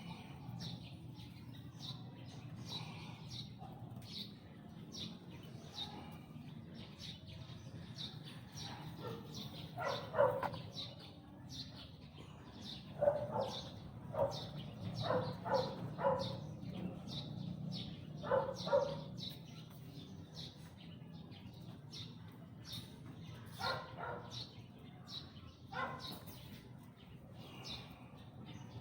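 Small birds chirping over and over, with several clusters of louder, lower calls that sound like a dog barking, over a steady low hum.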